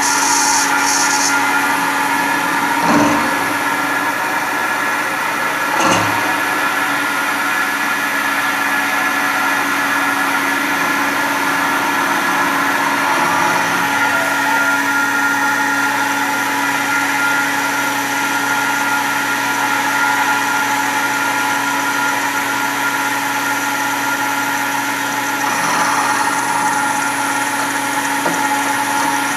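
Fanuc Tape Center Model D CNC vertical milling machine cutting a metal block in a vise: the spindle and drives run with a steady hum of several constant tones under the noise of the end mill cutting. Two short knocks sound about three and six seconds in.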